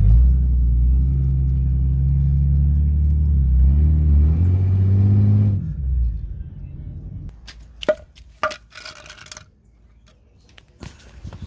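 Ford AU Falcon engine and road noise heard inside the cabin while driving, the engine note rising as the car speeds up about three and a half seconds in, then fading out around six seconds. Later come a few sharp knocks as a wooden block is handled beside the car's rear wheel.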